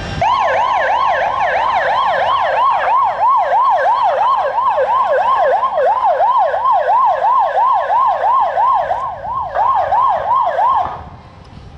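Police patrol car siren sounding a fast rising-and-falling wail, about three cycles a second, as the car arrives; it cuts off suddenly about eleven seconds in.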